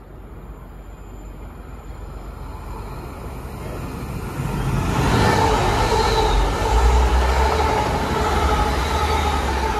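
A pair of coupled Class 185 diesel multiple units approaching and passing close by, their engines and wheels on the rails growing steadily louder. It is loudest from about five seconds in, a deep rumble with a steady whine over it.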